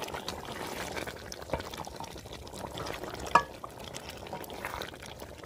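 Meat and gravy bubbling in oil in a steel pot while being stirred and fried with a spatula, at the stage where the meat is fried (bhuna) after most of its water has cooked off. The spatula clinks against the pot a few times, most sharply about three and a half seconds in, with a brief metallic ring.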